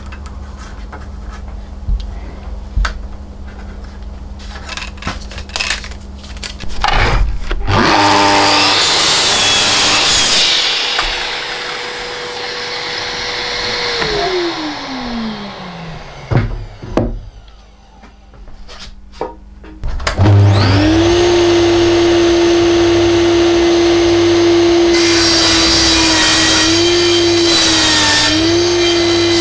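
Electric power tool motor, heard after a few seconds of low hum and scattered knocks. It spins up, runs steadily for several seconds, and winds down with a falling whine. It then starts again about two thirds of the way through and runs steadily, with brief dips in speed near the end as it takes load.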